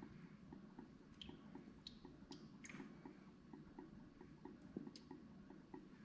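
Near silence: a few faint bubbling plinks of coolant running down a funnel into a motorcycle radiator, over a faint steady ticking about four times a second.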